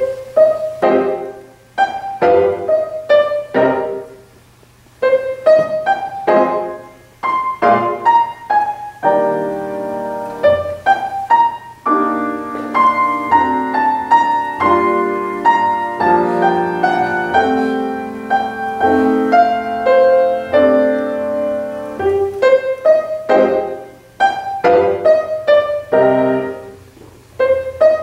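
Grand piano played solo: separate melody notes with a brief pause about four seconds in, then a fuller stretch of held chords through the middle, and quicker notes again near the end.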